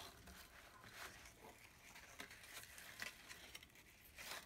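Faint rustling and soft ticks of satin ribbon and cardstock being handled while a ribbon bow is tied, over near silence.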